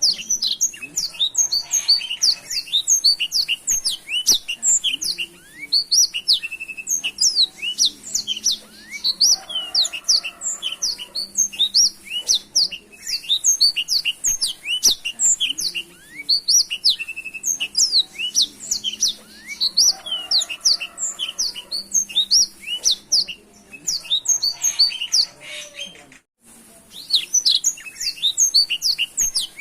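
Black-throated canary (blackthroat) in full song: a fast, almost unbroken stream of high twittering and trilling notes, with one brief pause near the end.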